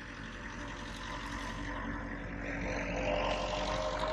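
A motor engine's steady drone, growing louder about two and a half seconds in.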